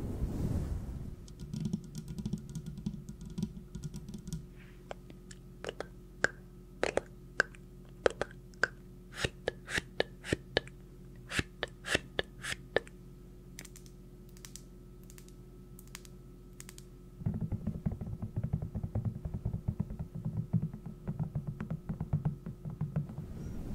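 Irregular sharp taps and clicks in quick uneven runs, loudest and densest in the middle. A low rushing noise lies under the first few seconds and comes back about two-thirds of the way through.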